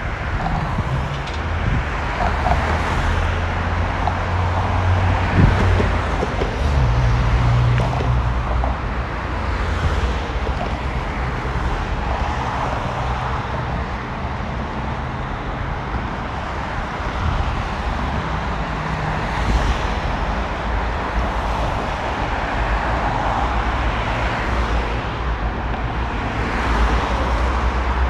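Road traffic on a multi-lane bridge: cars and vans driving past close by, one after another, in a continuous wash of tyre and engine noise that swells and fades as each vehicle passes.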